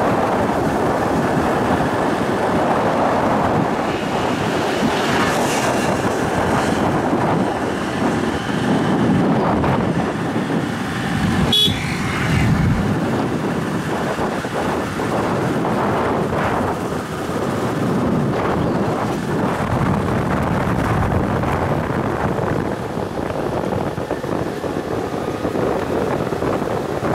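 Wind rushing over the microphone and the running noise of a moving motorcycle on a paved road, a steady rush without a clear engine note. A short sharp sound cuts through about halfway through.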